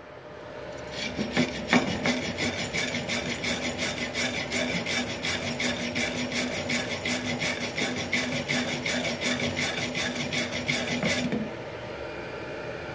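Hand wire brush scrubbing slag and spatter off fresh gasless (flux-core) MIG weld beads on a steel plate, in quick, even back-and-forth strokes that stop about eleven seconds in.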